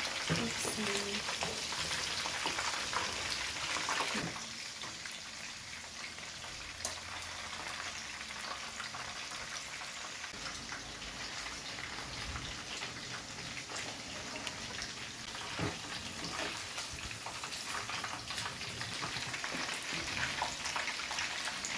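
Chicken pieces deep-frying in hot oil in a wok: a steady crackling sizzle, with a few sharp clicks along the way.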